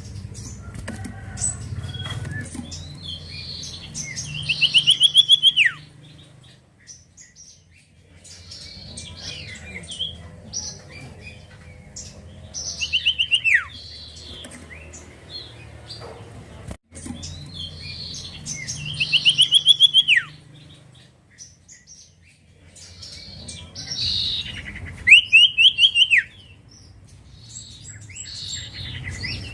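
Common iora (cipoh) singing. A loud phrase of a fast trill ending in a falling slurred note comes four times, about six seconds apart, with softer chirps between them.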